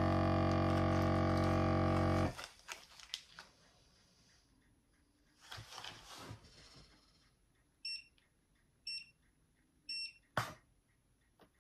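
A steady droning tone cuts off abruptly about two seconds in. Then come faint plastic-bag rustling, three short electronic beeps about a second apart from the battery-powered vacuum sealer, and a sharp click right after the last beep.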